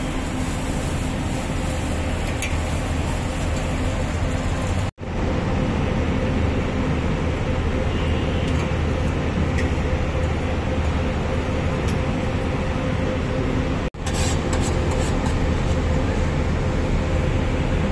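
Steady background rumble and noise with a constant low hum, broken twice by a split-second dropout: once about five seconds in and again near fourteen seconds.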